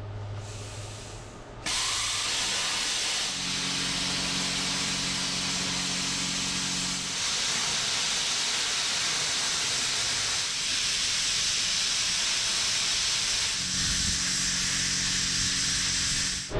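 Plasma cutter gouging and beveling the steel edge of a loader bucket: the arc and air blast make a steady loud hiss that starts about two seconds in and stops suddenly near the end. A low hum from the machine joins in twice.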